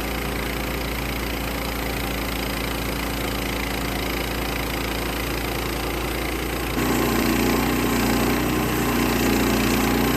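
Norwood LM30 portable bandsaw mill running, its engine steady as the band blade makes an opening cut through a log. About two-thirds through, the sound steps up louder. The blade is dull and wandering, leaving a wavy cut.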